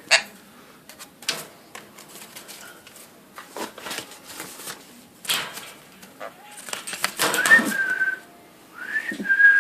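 Indian ringneck parakeet giving two short whistled calls in the second half, each rising and then held. Scattered light clicks and taps run throughout.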